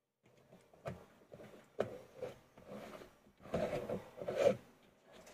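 Plastic poultry waterer being assembled by hand: a plastic base knocked and twisted onto a filled plastic jar. Sharp clicks come about one and two seconds in, then a louder stretch of rubbing and knocking about three and a half seconds in.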